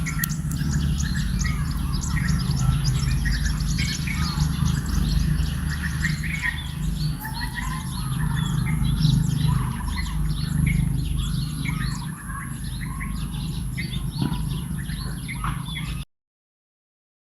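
Many birds chirping in dense, overlapping short calls over a steady low rumble and a thin, steady high whine; everything cuts off abruptly about a second before the end.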